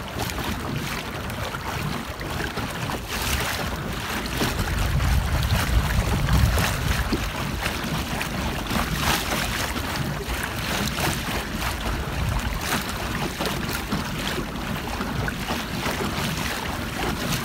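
Water rushing and splashing along the hull of an Old Town Predator pedal kayak being pedalled fast, with wind buffeting the microphone, strongest about five seconds in.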